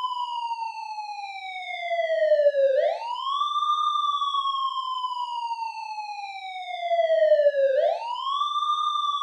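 Air-raid warning siren sounding an alert. Its wail climbs quickly, then slides slowly down in pitch over about five seconds, and starts a fresh climb twice.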